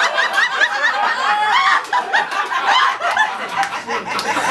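Audience laughing, many voices at once, in response to a joke's punchline.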